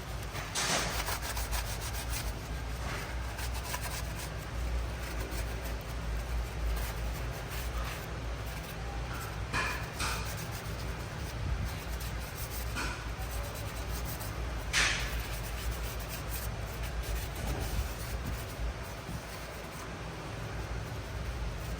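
Hand rubbing and scrubbing as a removed engine part is cleaned, a continuous scratchy rubbing with a few brief sharper scrapes, the loudest about fifteen seconds in, over a steady low hum.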